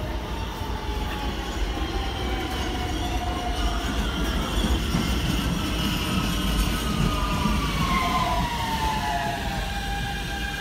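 NYC Subway R160B train with Siemens propulsion arriving and braking: its motor whine falls steadily in pitch over a rumble of wheels on rail, loudest midway as it draws alongside.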